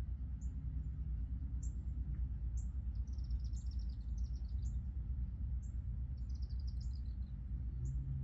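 Small songbirds chirping: a short, high chirp repeats about once a second, and two quick trills that fall in pitch come in the middle. A steady low rumble runs underneath.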